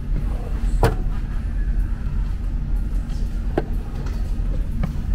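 A wooden drawer pulled open by hand, with a sharp wooden knock about a second in and a fainter knock later, over a steady low background rumble.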